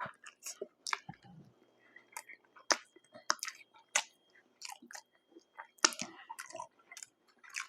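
Close-miked chewing and biting of fast food: irregular wet clicks and small crunches, several a second, with short pauses.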